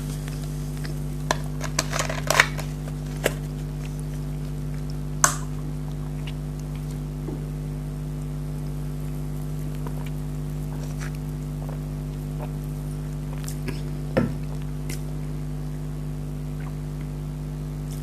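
A few short crunches and clicks of someone eating chicken nuggets: a cluster about two seconds in, then single ones around five and fourteen seconds, over a steady low hum.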